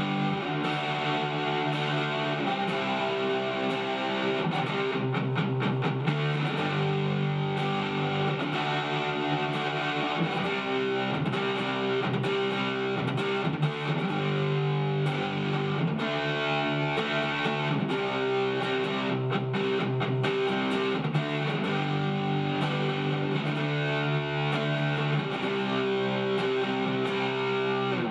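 Shelter SG-style solid-body electric guitar played with a distorted, overdriven tone: chords and riffs that ring on, at a steady loudness throughout.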